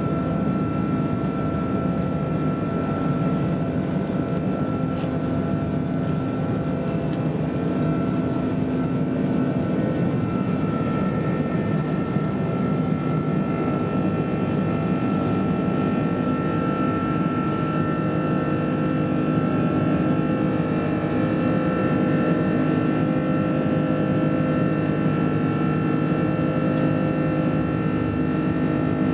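Cabin noise of an Airbus A330-300 taking off and climbing out: the Rolls-Royce Trent 700 engines at high power make a steady rush with several high, steady whining tones above it.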